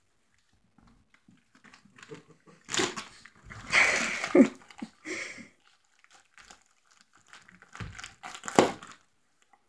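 A pit bull tearing and crinkling wrapping paper off a present with its teeth and paws, in several short bursts.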